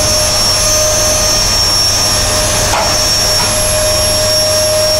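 Vacuum cleaner running steadily, its motor whine holding one even pitch over a constant rush of air.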